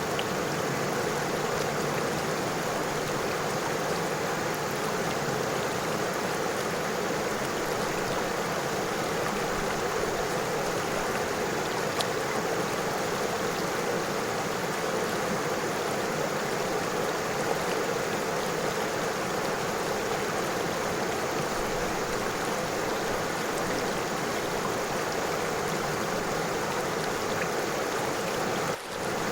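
River water running over stones, a steady, unbroken rush of flowing water, with a momentary drop in level shortly before the end.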